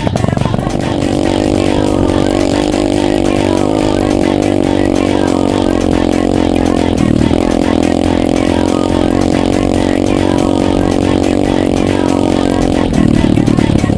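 Dirt bike engine running at steady revs under the rider, with a brief break about halfway through before it picks up again, and louder near the end.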